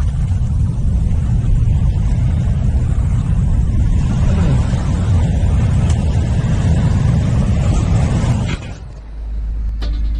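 Wind buffeting an action camera's microphone over surf washing on the shore, a loud steady rumble. It drops away suddenly about eight and a half seconds in, leaving a low steady hum.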